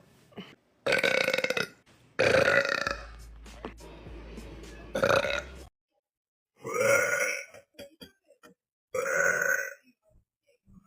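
A woman burping: five loud burps in a row, each under a second long.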